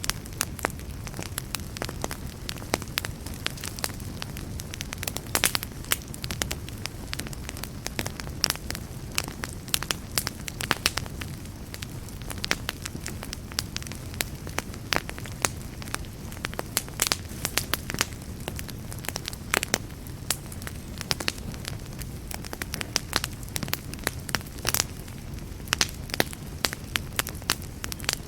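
Wood campfire crackling: many irregular sharp pops and snaps, several a second, over a steady low rumble of the burning fire.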